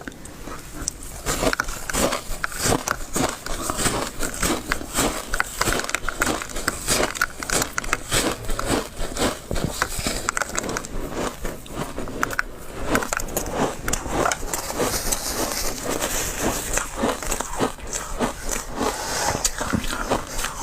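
Teeth biting and crunching through shaved, refrozen ice: rapid, irregular crisp crunches, several a second, close up.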